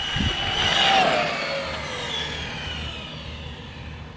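Team Corally Kronos XP 1/8 monster truck's 6S brushless motor whining at full throttle as the truck passes close by at close to 60 mph. The whine climbs and grows loudest about a second in, then drops in pitch and fades as the truck runs away.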